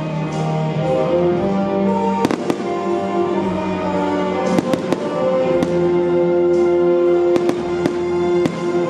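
Aerial firework shells bursting in the sky with several sharp bangs, some in quick pairs or threes. Loud music with sustained notes plays under them.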